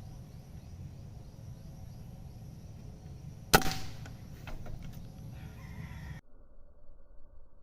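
A single shot from a PCP air rifle, a sharp crack about three and a half seconds in, over a low steady outdoor background. About six seconds in the outdoor sound cuts off abruptly to a faint, muffled background.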